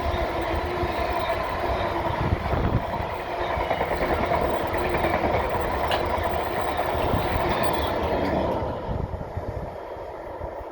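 Freight train passing on the line: wagons rolling by with a steady clatter and a few held ringing tones from the wheels, easing off about eight or nine seconds in as the train draws away.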